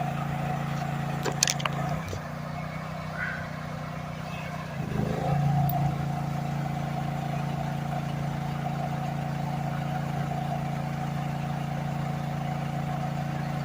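Small gasoline engine running steadily. Its note drops and goes quieter between about two and five seconds in, then comes back. A sharp click sounds about a second in.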